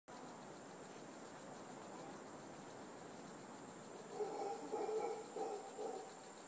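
Steady high-pitched drone of an insect chorus. About four seconds in, a louder, lower wavering sound comes in for a couple of seconds.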